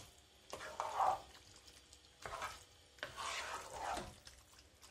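Wooden spatula stirring thick, oily lemon pickle in a non-stick pot: a few separate stirring strokes about a second apart.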